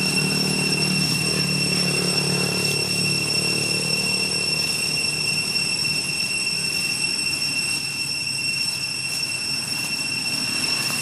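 Steady, shrill insect drone holding one high tone throughout, with a low engine hum beneath it that fades out about halfway.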